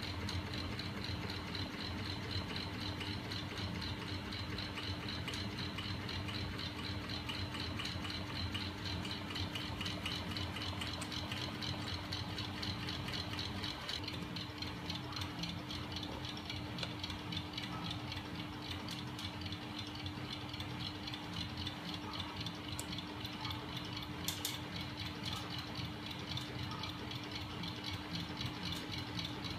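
Homemade magnet 'ornithopter engine' demonstrator driven by small battery-powered DC electric motors, running steadily: a constant motor hum under a fast, even rattle and clicking of its linkages and swinging arm.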